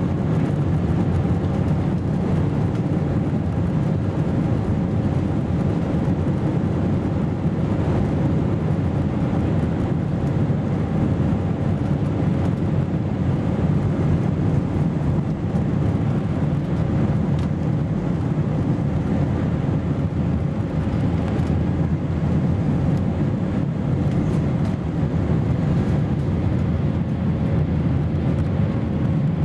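Airbus A321-231's two IAE V2500 turbofan engines at takeoff thrust, heard inside the cabin from a seat over the wing: a loud, steady rumble with a faint high hum, through the takeoff roll and liftoff.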